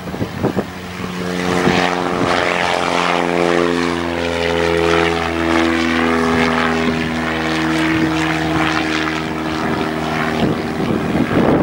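Small high-wing Cessna's single piston engine and propeller at climb power just after take-off: a steady, even-pitched drone. It comes up about a second in and is swamped by wind buffeting the microphone near the end.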